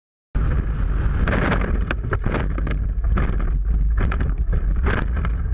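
Side-by-side UTV being driven: heavy wind buffeting and vehicle rumble on the onboard camera microphone, with repeated sharp knocks and rattles from the cab, starting suddenly about a third of a second in.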